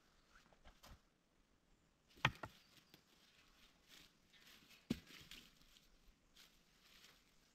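Faint rustling broken by sharp knocks: a quick double knock about two seconds in and a single one about five seconds in.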